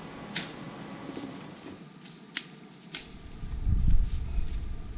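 A handful of sharp clicks and knocks spaced irregularly, over a faint background, with a low rumble coming up in the second half.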